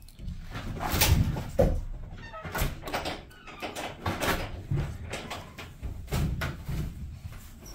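Irregular light knocks, clicks and rustling from handling a black plastic seed-starting tray and seeds on a wooden table as seeds are pressed into the soil-filled cells.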